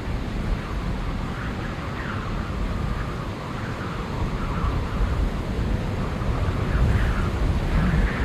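Wind rumbling on the microphone in uneven gusts, with faint high tones that waver up and down about once a second.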